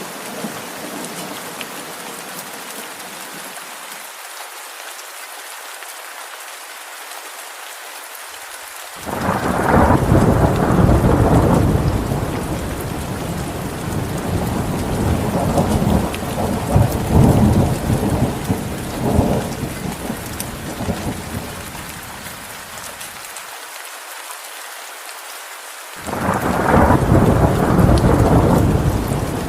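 Steady rain falling, with thunder that breaks in suddenly about a third of the way in and rolls on, swelling and fading, for over ten seconds. A second clap of thunder starts shortly before the end.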